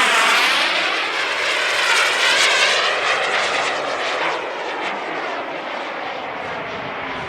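Turbine engine of a radio-controlled Hangar 9 Aermacchi MB-339 model jet flying past. It is loudest near the start and again about two seconds in, then fades to a steadier, lower level.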